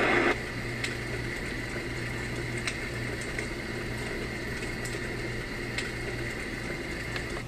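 Homedics SoundSpa clock radio playing its built-in campfire nature sound through its small speaker: a soft hiss with scattered crackling pops over a steady low hum. A louder steady rush, the previous sound setting, cuts off about a third of a second in as the button is pressed.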